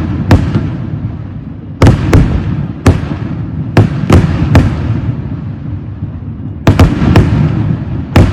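Fireworks exploding: loud sharp bangs, some single and some in rapid clusters of two or three, over a continuous low rumble of more blasts and their echoes.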